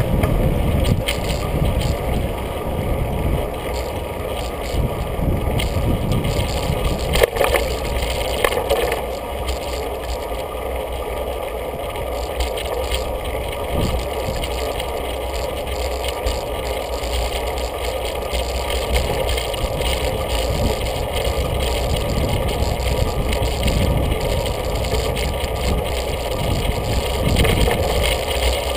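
Riding noise picked up by a bicycle-mounted camera: wind on the microphone and a steady rumble of tyres on the road, with a sharp knock about seven seconds in.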